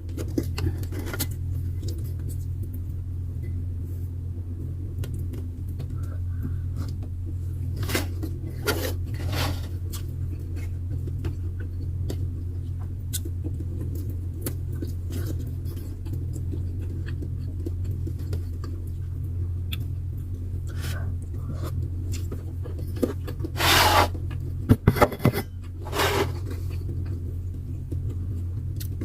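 Dishes and eating utensils clicking and clattering now and then over a steady low hum, with a short run of louder clatter and handling noise about 24 seconds in.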